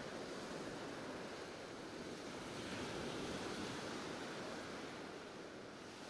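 Caspian Sea surf: small waves breaking and washing up a sandy beach in a steady rush, with wind blowing across.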